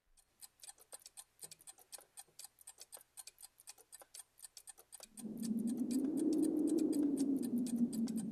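Rapid clock-like ticking, several ticks a second, as part of a title soundtrack. About five seconds in a low musical drone swells in under it, its pitch rising slightly and then settling back.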